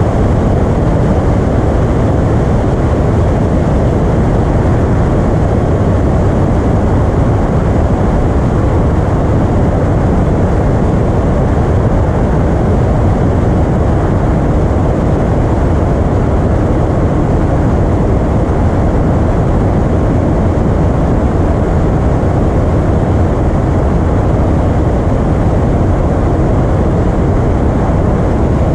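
Piper Arrow single-engine light aircraft in flight: its piston engine and propeller drone steadily without change.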